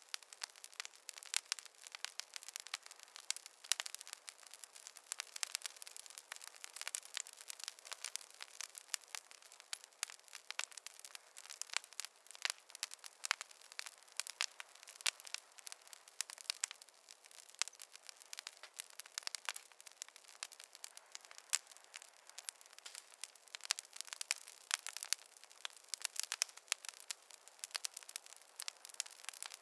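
Campfire crackling: a dense, irregular stream of sharp pops and snaps over a soft hiss, with no low rumble.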